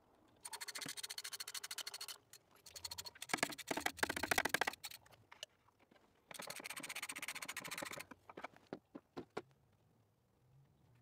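Hand tools working a spark plug: rapid, evenly spaced metal scratching in three bursts of a second or two each, followed by a few separate clicks.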